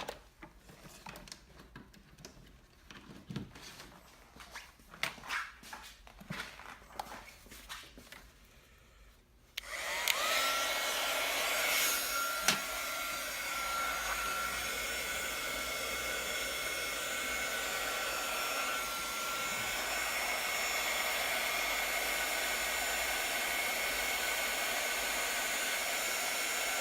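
A few small handling clicks, then about ten seconds in a heat gun switches on and blows steadily with a faint whine, shrinking heat-shrink tubing over freshly soldered connector terminals.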